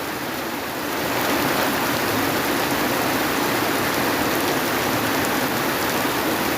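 Heavy rain falling steadily, a dense, even hiss that grows slightly louder about a second in.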